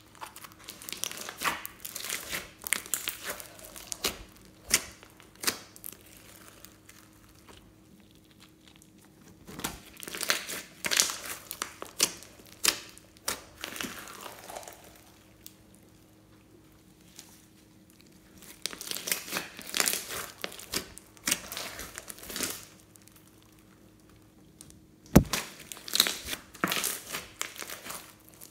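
Hands squeezing and pressing sticky floam slime full of foam beads, giving crackling, popping and crinkling sounds. These come in several bursts separated by quiet pauses, with one sharp, loud snap near the end.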